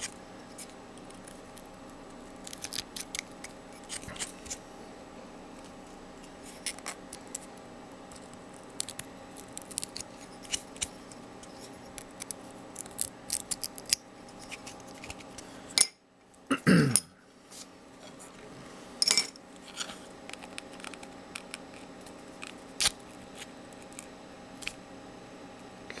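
Hobby knife blade scraping and picking at the small holes of a 3D-printed plastic part, giving scattered small scratchy clicks over a steady background hum. About two-thirds of the way in there is a brief gap, then a short falling sound.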